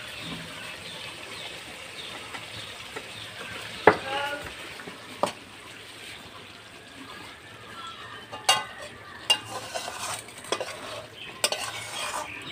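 Thick chicken curry sizzling in a metal karahi while a wooden spatula stirs and scrapes through it, with a few sharp knocks against the pan. The curry is finished and about to come off the heat.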